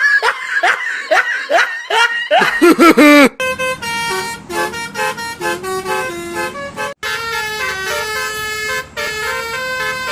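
Telolet bus horn playing a tune of short held notes in several tones at once, after about three seconds of quick, repeated swooping tones.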